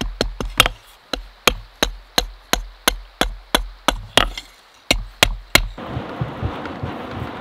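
Hand hammer striking a red-hot mild steel bar on an anvil, about three sharp blows a second, with a short pause just before the end of the hammering. In the last second and a half the hammering gives way to the steady rushing crackle of a charcoal forge fire.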